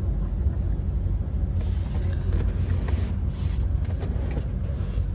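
Steady low rumble and hum inside a Renfe Class 130 (Talgo 250) train carriage, with a few faint brief hisses.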